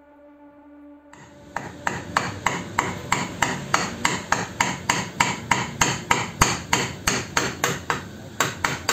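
Claw hammer tapping repeatedly on a round wooden disc set in a wooden block, about three blows a second, starting about a second and a half in, with a short pause and three quicker blows near the end.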